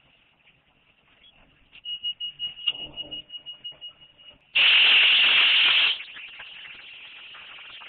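A loud hiss of spray from a hand-held wand jetting the engine block, lasting about a second and a half, then easing to a weaker steady hiss. Before it, a high, rapidly pulsing tone with some rattling.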